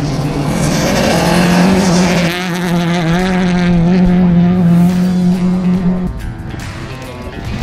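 Rally car engine running hard at high revs, its note held steady for several seconds before dropping away near the end.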